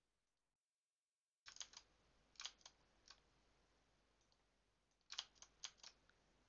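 Faint clicking at a computer: about ten short, sharp clicks in small clusters, starting about one and a half seconds in, after a moment of dead silence.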